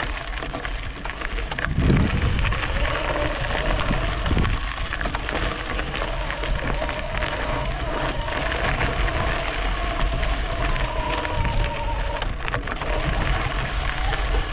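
Wind rushing over the microphone and tyre noise while riding an e-bike, with a faint steady whine from the motor.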